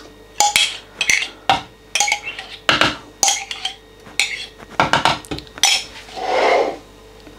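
Metal spoon scraping and clinking against a ceramic mug as thick Greek yogurt is scooped out into a blender jug: a quick, irregular run of scrapes and taps, with one longer scrape about six seconds in.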